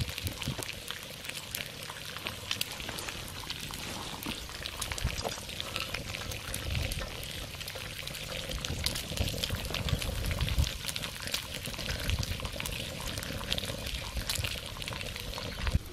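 Bacon sizzling in a cast iron skillet: a steady hiss full of small fat pops and crackles. Soft low rumbles come and go underneath.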